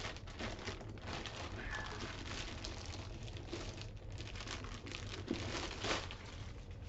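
Packaging being handled and unwrapped: an irregular crinkling and crackling, loudest about six seconds in.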